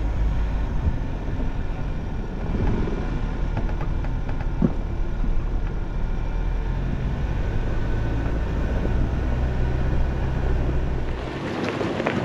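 Ford Bronco driving slowly along a dirt and rock trail: a steady low engine drone with tyre and body noise, and one sharp knock about four and a half seconds in. Near the end the drone drops away and wind on the microphone and crackling gravel under the tyres take over.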